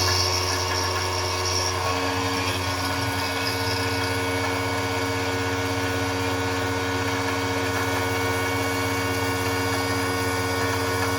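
CNC machine running steadily while cutting knife stock: a steady motor hum with several constant tones. A high whine fades out about a second and a half in.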